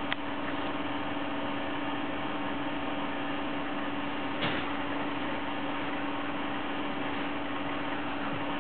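Room tone: a steady hiss with a low hum. There is a soft click right at the start and another about four and a half seconds in.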